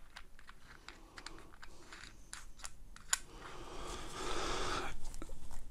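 Small clicks and taps of a vape tank's metal and glass parts being handled, with one sharper click about three seconds in. Then a longer rasping scrape as the tank's parts are twisted and screwed together.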